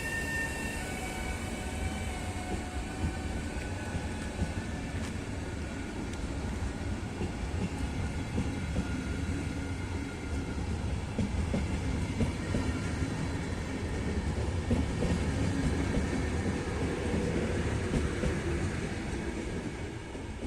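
Passenger train hauled by an electric locomotive running by, a steady rumble of wheels with clicks over the rail joints. A thin whine from the locomotive fades and sinks slightly in pitch over the first few seconds.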